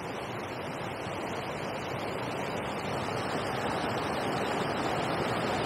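Steady rushing of river water pouring over a weir and churning in the white water below, growing slightly louder toward the end.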